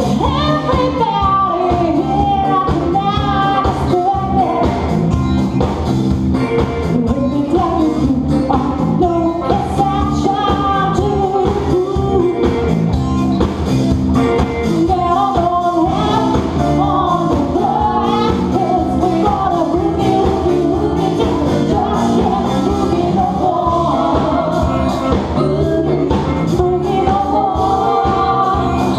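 A live band playing a song, with several singers singing into microphones over electric bass, keyboards and drums keeping a steady beat.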